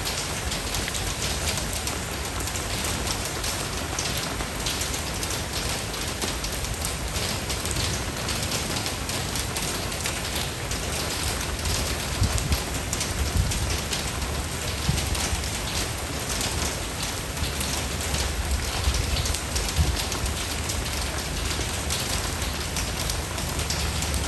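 Steady rain falling on a surface, a dense hiss of drops with many small separate drop ticks and a low rumble underneath.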